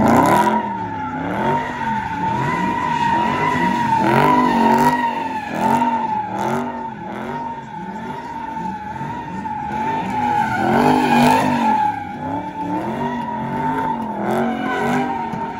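Dodge Charger SRT drifting with its rear tires spinning, giving one steady high screech throughout. Beneath it, the V8 engine's pitch rises and falls over and over, roughly twice a second.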